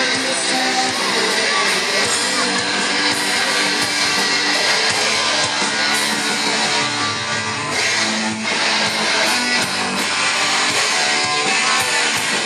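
Live rock band playing loud music with electric guitars.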